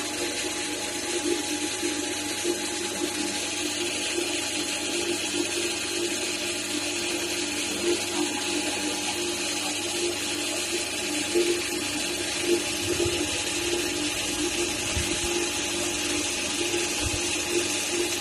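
Milling spindle running steadily as a small end mill cuts engraved grooves into a painted aluminium motorcycle rear brake drum cover, a steady hum with a high cutting hiss over it.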